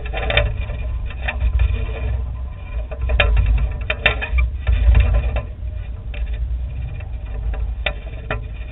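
Wind buffeting and rattling on the microphone of a camera carried aloft: a steady low rumble with irregular crackles.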